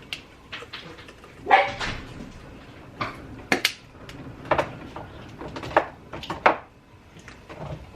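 Kitchen handling sounds: spice containers and utensils making a series of separate short clicks and knocks, roughly one a second.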